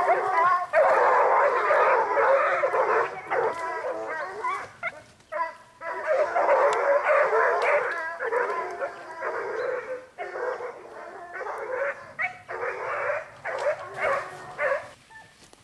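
A pack of young Gascon hounds baying and howling together, several high voices overlapping, with a few short breaks.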